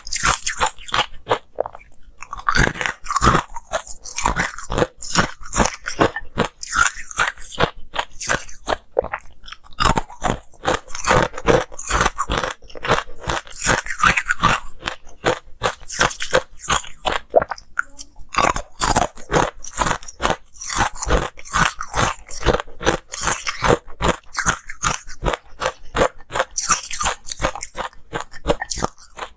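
Ice cubes dusted with green powder being bitten and chewed, miked close to the mouth: a rapid run of loud, sharp crunches, several a second, broken only by brief pauses between mouthfuls.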